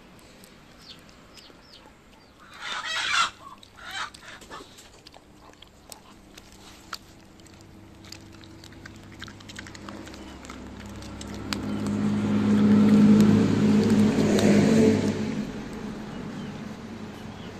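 A Shiba Inu gnawing and crunching on boiled chicken bones, with scattered sharp clicks of teeth on bone. A short loud noisy burst comes about three seconds in, and about ten seconds in a louder steady low-pitched sound swells up for several seconds and then fades.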